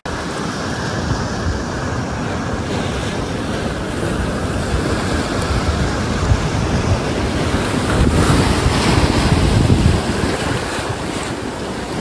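Sea surf washing in over rocks along the shore, with wind buffeting the microphone; the surge swells louder about eight seconds in.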